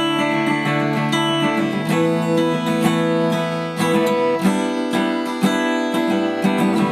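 Background music led by a strummed acoustic guitar, with chords changing every second or so.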